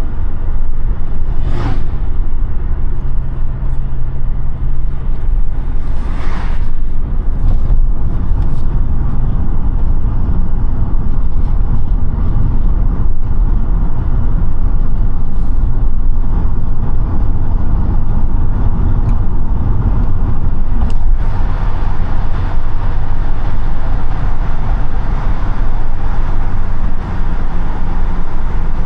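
Audi A5 8T driving at speed: a steady engine drone under tyre and wind noise, the engine note shifting a few times in the first several seconds. Two brief whooshes sound early on, and the road and wind noise grows fuller past the twenty-second mark.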